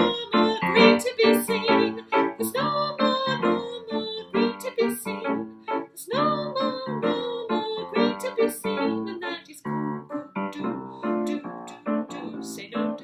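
A woman singing a jazzy children's song with piano accompaniment, the voice holding and bending notes over piano chords.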